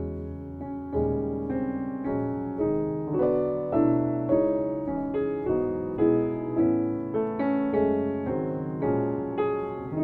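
Background piano music, a new note struck about twice a second, each ringing and fading.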